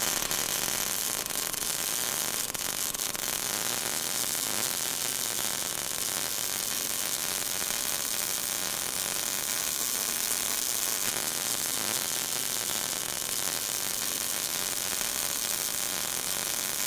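Welding-arc sound effect: a steady, high-pitched electric hiss and crackle.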